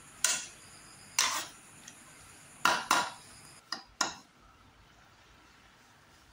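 Utensil scraping and knocking against a steel kadai while stirring chunks of meat and potato: about seven sharp clanks and scrapes in quick bursts, ending about four seconds in.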